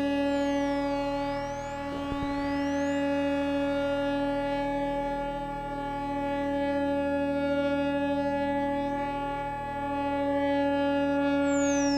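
Synthesizer running a Krell patch, a self-playing generative patch: a held cluster of steady electronic tones. A bright tone sweeps down and back up near the start, and another falls near the end.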